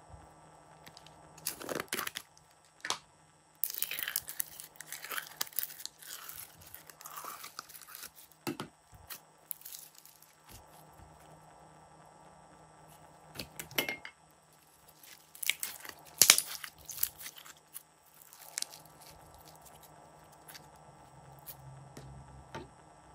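Glossy pink glitter slime being pulled out of its plastic egg container and worked by hand: sticky crackling and tearing noises with sharp clicks and pops, in irregular bursts, loudest about 16 seconds in.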